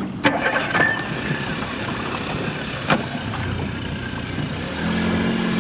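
Honda 50 four-stroke outboard motor running over wind and water hiss, with two sharp knocks. Its steady engine note grows stronger near the end.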